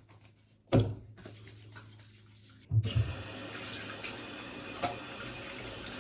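A single thump, then about three seconds in a tap is turned on and water runs steadily into a sink.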